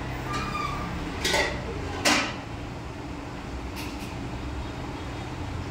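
Eatery background: a steady low hum with short, sharp clatters of dishes, two a little after one and two seconds in (the second the loudest) and a fainter one near four seconds.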